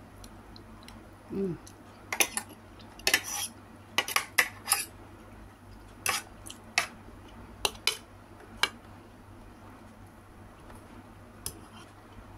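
Metal fork and spoon clinking and scraping against a plate in a run of short sharp clicks, most of them in the first two-thirds, thinning out near the end.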